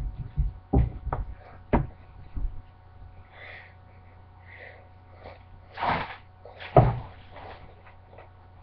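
Knocks, bumps and rustling as a kitten wrapped in a fabric blanket is handled and set down on a stone countertop, with a short louder burst of noise about six seconds in and a sharp thump just after it.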